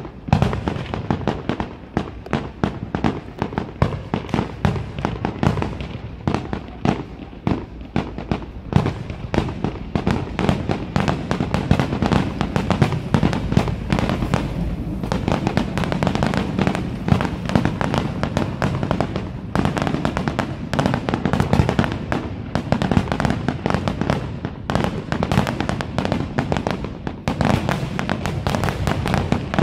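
Fireworks grand finale: aerial shells bursting in a rapid, overlapping barrage of bangs and crackles, thickening into a near-continuous din about twelve seconds in.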